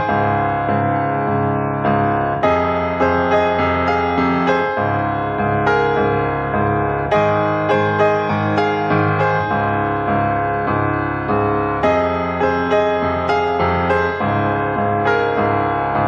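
Background piano music: a steady, even run of notes.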